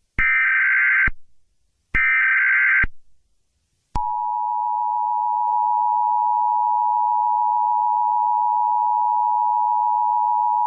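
Emergency Alert System tones. The last two of three harsh warbling SAME header data bursts, each about a second long with short gaps, are followed about four seconds in by the steady two-tone EAS attention signal, which holds unbroken.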